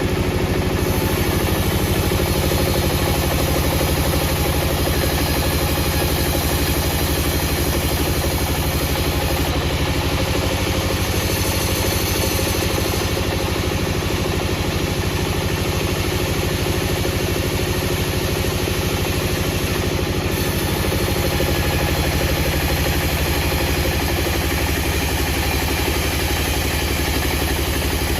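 An engine running steadily at an even speed, with a fast regular firing pulse and no revving.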